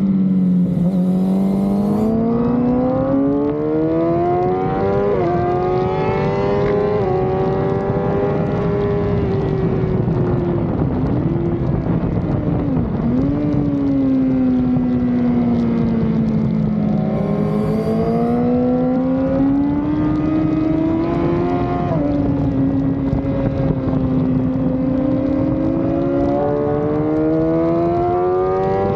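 Sport-bike engine heard from the rider's seat at speed, its pitch climbing under acceleration and falling as the bike slows, with brief sharp dips at gear changes, over steady wind rush.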